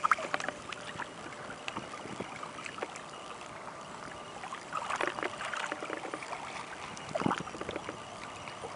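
Water sloshing and lapping, with a few small splashes about five and seven seconds in, as a fish is held in the water and let go.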